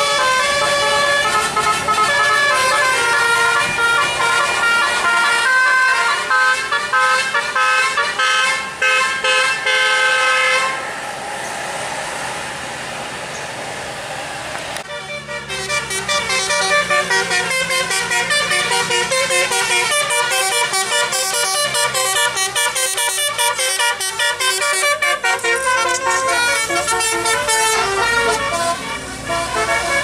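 Tour-bus telolet horns playing quick melodic tunes of rapidly stepping notes, in the Basuri style. Near the middle there is a gap of about four seconds holding only a rushing noise, then the horn tunes start again and run on.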